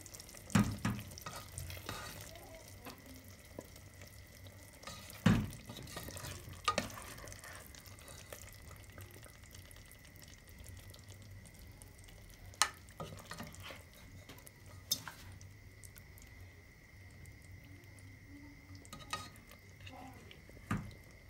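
A spoon stirring thick chicken curry in a metal pot, with sharp knocks of the spoon against the pot every few seconds, about seven in all, the loudest about five seconds in, over a faint low simmer.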